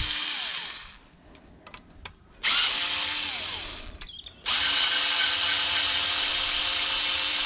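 Cordless drill running in three stretches, working the screw of the deflection-yoke clamp on a CRT's neck. It stops about a second in and starts again at about two and a half seconds with a short rise in pitch as it spins up. It pauses briefly just after four seconds and then runs steadily again.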